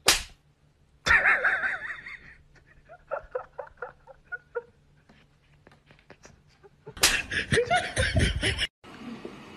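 A person laughing in bursts, with a run of short giggles in the middle. A sharp smack at the very start.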